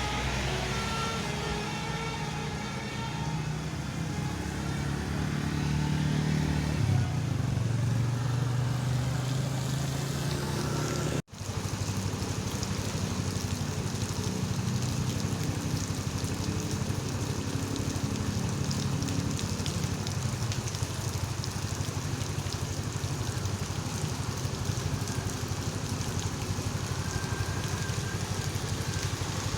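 Large bus engine running close by, with a Basuri V3 telolet horn sounding its shifting multi-tone melody over the first several seconds. The sound cuts out abruptly about eleven seconds in, then gives way to steady engine and traffic noise.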